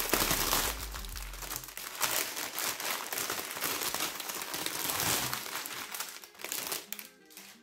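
Clear plastic wrapping around bags of diamond painting drills crinkling as hands handle and scrunch it. The crinkling dies away about seven seconds in.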